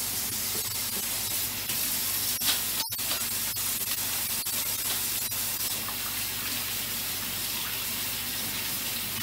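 Kitchen faucet running steadily into a stainless steel sink while hands are rubbed and rinsed under the stream. The sound cuts out for a split second about three seconds in.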